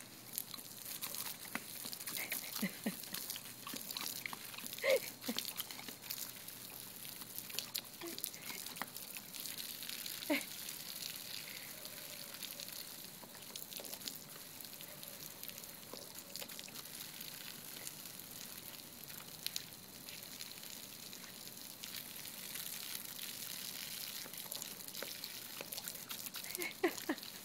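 Garden hose spraying a thin jet of water that spatters onto grass and brick paving: a steady hiss with patter and scattered clicks as a puppy bites at the stream. A few short squeaks break in now and then.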